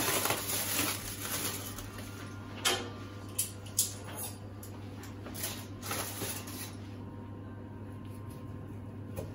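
Aluminium foil crinkling and crackling in irregular bursts as it is pulled open from around a resting cut of meat, dying down in the last couple of seconds as the meat is sliced. A steady low hum runs underneath.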